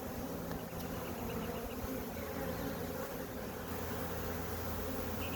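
Honey bees buzzing steadily around an opened nuc hive.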